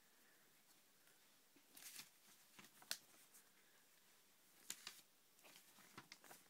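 Faint rustles and light taps of glossy magazine cutouts being handled and laid down, in short scattered bursts, the sharpest tap about three seconds in.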